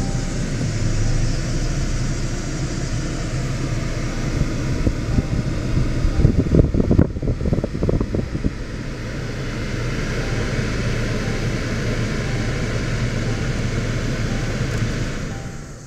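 2017 Land Rover Discovery Sport's turbocharged four-cylinder engine running steadily in Park at about 2,000 rpm, heard inside the cabin with the ventilation fan blowing. A short spell of louder, irregular rumbling knocks comes about halfway through.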